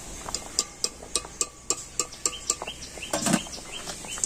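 Metal clinks of a wire skimmer knocking against a steel wok and plate as boiled potatoes and eggs are lifted out, a few sharp clinks a second with a brief ring, and a louder clatter a little after three seconds in. Faint bird chirps behind.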